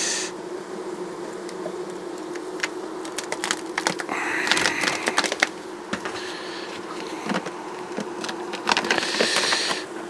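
Honeybees buzzing steadily in an opened hive, with scattered clicks and two louder crackling rustles, about four seconds in and near the end, as a clear plastic cover sheet is peeled back off the frames.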